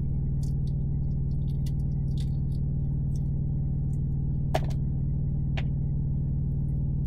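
Small crackles and clicks of eggshell being peeled by hand off a hard-cooked egg, with a sharper crack about four and a half seconds in and another a second later, over a steady low hum.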